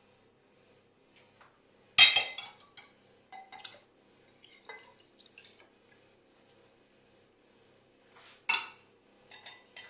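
Glass and kitchenware clinking against a glass blender jar while milk is poured into it. There is a sharp, ringing clink about two seconds in, then softer taps, and another loud clink near the end.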